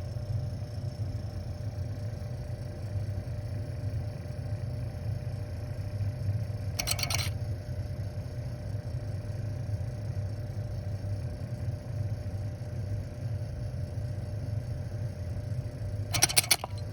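Bell & Gossett circulator pump and its spring-coupled motor running with a steady low hum, a pump whose impeller the owner reports as seized. A brief rattle comes about 7 seconds in and again near the end.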